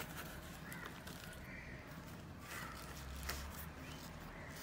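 Faint rustling and crinkling of a cardboard box and bubble-wrap packaging being handled, with a sharper crackle about three seconds in. A bird calls a few times in the background.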